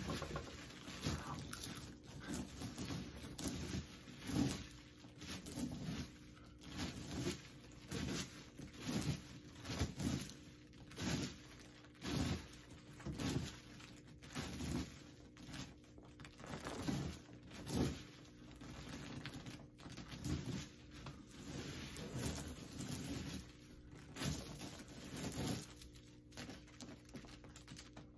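Loose popcorn rustling and crunching in repeated bursts, roughly one a second, as handfuls are scooped up and tossed so they fall back onto the couch.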